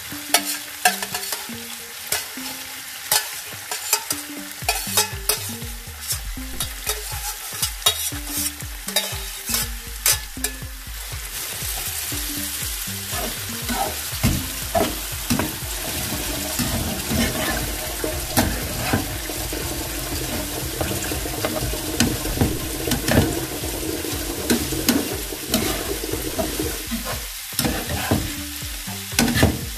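Chopped broccoli sizzling in oil in a non-stick frying pan while a slotted spatula stirs and turns it, with frequent clicks and scrapes of the spatula against the pan. The sizzle grows steadier and a little louder about halfway through.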